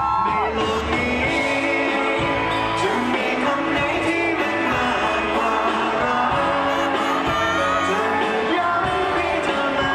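Pop-rock song with a singing voice over a band with guitar and bass, starting abruptly at the beginning.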